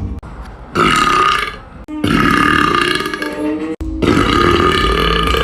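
Loud, long drawn-out burps, three in a row: a short one about a second in, then two longer ones of nearly two seconds each with brief breaks between.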